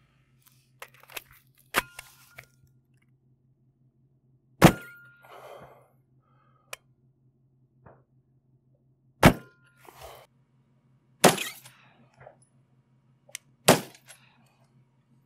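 Several shots from a CZ Scorpion pistol-braced carbine with a 7.72-inch barrel firing 9mm Federal 147-grain HST rounds, sharp single reports a few seconds apart. The bullets leave at about 1,040 fps, below the speed of sound.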